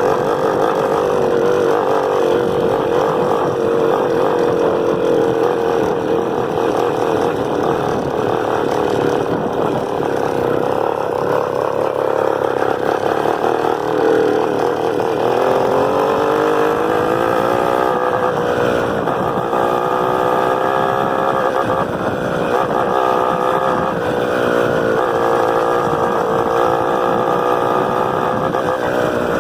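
Honda CG 125's single-cylinder four-stroke engine running while the motorcycle is ridden. It holds a steady note at first; about halfway through the pitch climbs, then rises and falls several times.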